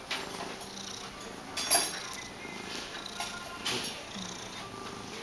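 Domestic cat purring while being stroked. A few brief sharp noises break in, the loudest about a second and a half in.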